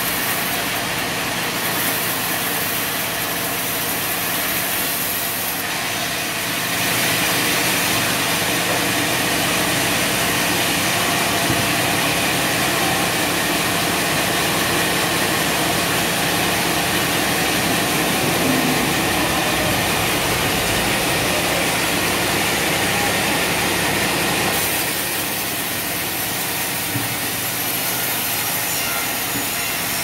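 Vertical band sawmill running, its blade cutting lengthwise through a large squared timber as it is fed past. A steady machine noise that grows louder about seven seconds in and drops back near twenty-five seconds.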